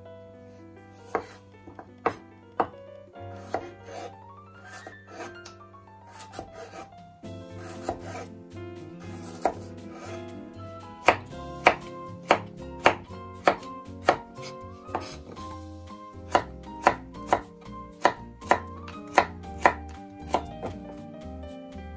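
Kitchen knife cutting a carrot on a bamboo cutting board: a few spaced-out cuts, then steady knife strikes on the board about twice a second from about halfway through, as the carrot is sliced into thin planks and julienne strips.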